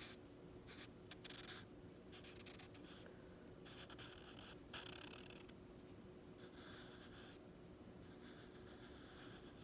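Faint scratching of a drawing tool on paper, in a series of strokes each lasting about half a second to a second, with short pauses between them.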